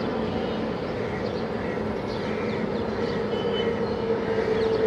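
Airbus A320-251N's CFM LEAP-1A turbofan engines running as the airliner rolls along the runway: a steady rushing noise with a steady hum in it that grows a little stronger near the end.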